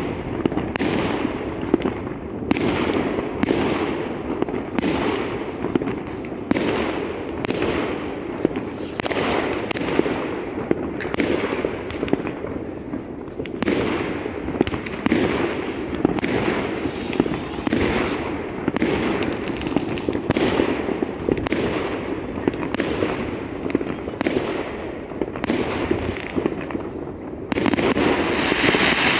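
Fireworks display: aerial shells bursting one after another, about one to two bangs a second, each trailing off in an echo, over steady background noise. A denser, louder volley comes near the end.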